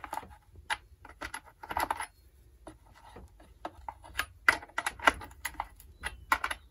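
Irregular metallic clicks and clinks of a hand tool working against a Stihl MS170 chainsaw's bar and chain while the bar is levered up before the chain is tensioned.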